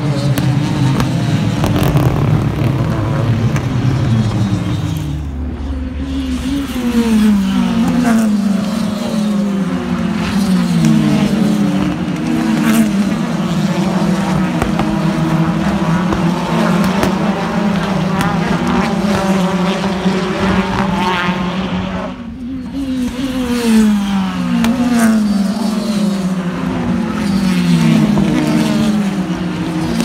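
A stream of BTCC touring cars, their 2.0-litre turbocharged four-cylinder engines, passing one after another at racing speed. The engines rev up and shift up through the gears again and again, several cars overlapping. The sound eases briefly about five seconds in and again past twenty seconds, between groups of cars.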